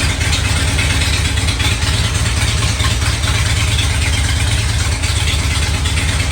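Harley-Davidson Ultra Classic's air-cooled V-twin engine idling steadily, with a loud, even low pulse.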